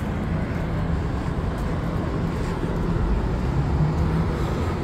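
Steady street traffic noise, a low rumble of car engines with no single event standing out.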